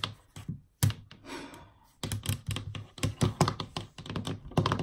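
A quick run of light taps and clicks, several a second, starting about two seconds in, after a soft breathy hiss.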